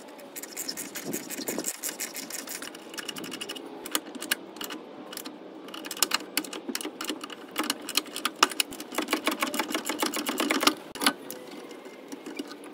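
Socket ratchet clicking in quick runs of rapid clicks while a rusted rear shock upper mounting bolt, heated to break it free, is backed out a little and run back in a little. The clicking stops about a second before the end.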